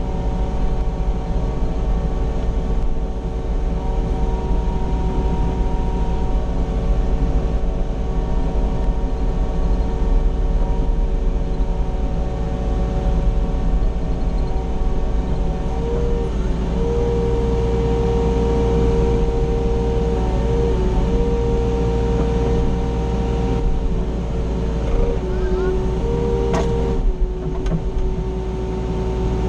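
Mini excavator's diesel engine running, heard inside the closed cab, with a steady humming tone. The hum grows louder about halfway through and changes pitch near the end as the machine is worked and the cab swings round.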